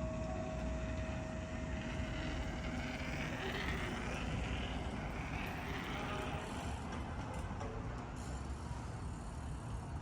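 The last church bell's hum dies away over the first few seconds. Then a car passes, its tyre hiss swelling and fading over a steady low rumble of traffic.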